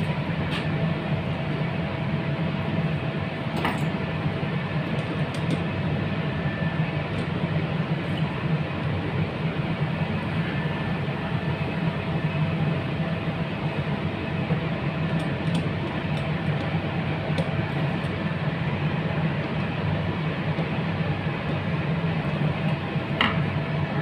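Steady rumbling workshop background noise with a faint constant tone, and a few light clicks as the starter's wiring is handled, the clearest about four seconds in and near the end.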